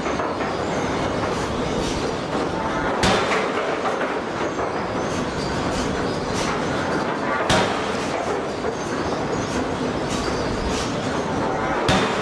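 Steady forge-shop din, with three sharp metal-on-metal strikes about four and a half seconds apart as the air hammer works a red-hot carbon steel flange ring blank on its anvil.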